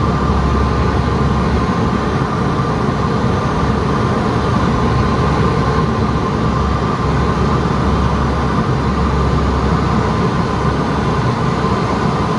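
Steady drone of the P-3 Orion's four turboprop engines: a deep, even rumble under a constant high whine, with no change in pitch.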